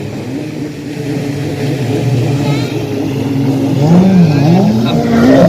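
Motorboat engine running on the water, growing louder as it nears, its pitch rising and falling as the throttle changes.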